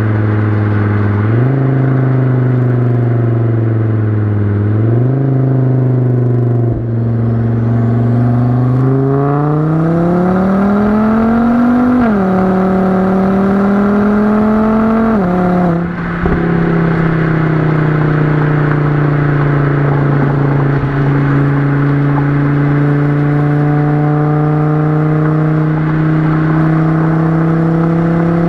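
Volvo S60R's turbocharged inline five-cylinder engine, heard through a 3-inch catless downpipe, straight pipe and Borla XR-1 muffler, while the car is driven. The note steps up twice in the first few seconds. It then rises steadily under hard acceleration for about four seconds, drops at two upshifts about twelve and sixteen seconds in, and settles into a steady cruise that slowly climbs in pitch.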